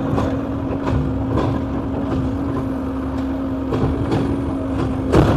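Excavator's diesel engine running steadily with a constant hum, with faint clicks and a louder knock near the end.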